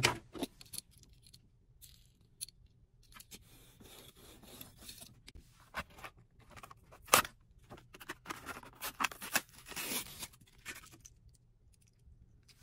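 Hot Wheels packaging being handled and opened by hand: irregular scrapes, crinkles and clicks, with a sharp louder one about seven seconds in and a longer stretch of tearing around nine to ten seconds.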